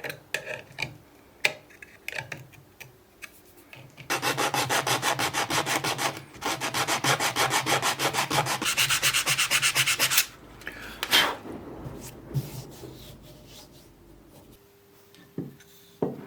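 Hand sanding of wood in fast, even back-and-forth strokes for about six seconds, with a brief pause partway through. Scattered clicks and knocks come before and after, with one sharp knock standing out.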